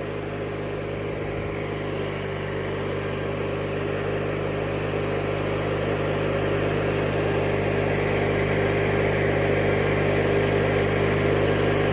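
1997 MTD Yard Machines riding lawnmower's engine running steadily, growing gradually louder toward the end.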